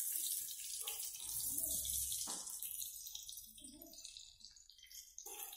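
Whole potatoes in hot oil in a steel wok, the oil sizzling with a steady hiss that fades as they are lifted out. A metal spoon clinks against the pan about two seconds in.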